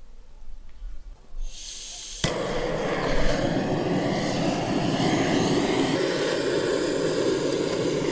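Butane blow torch on a gas canister lighting charcoal briquettes: gas starts hissing about a second and a half in, a sharp click about two seconds in, and then the flame burns steadily with a loud rushing noise.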